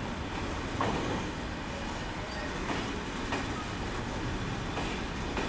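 Freight train of container flat wagons rolling past close by: a steady rumble with a few irregular knocks as the wheels cross rail joints.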